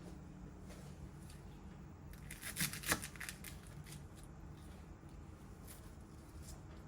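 Paper being handled: a brief cluster of crisp rustles and clicks about two and a half seconds in, over a faint steady low hum.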